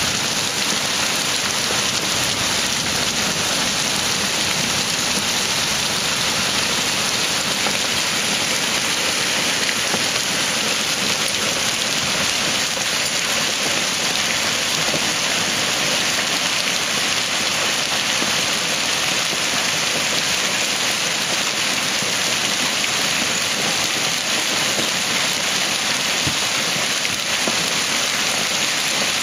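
Torrential rain mixed with hail pelting a paved street and lawn: a dense, steady hiss of drops and pellets that never lets up.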